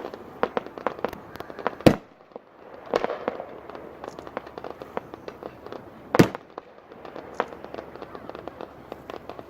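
Fireworks going off: a steady crackle of many sharp pops, with two loud booms, one about two seconds in and one about six seconds in.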